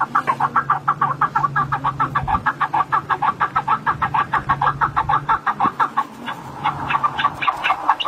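A chicken clucking in a fast, even run of about seven clucks a second, pausing about six seconds in and then starting again, over a low steady hum.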